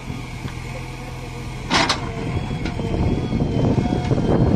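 JCB 3DX backhoe loader's diesel engine running while the backhoe arm digs, with a sharp knock about two seconds in. The engine then grows louder and rougher as the arm works under load.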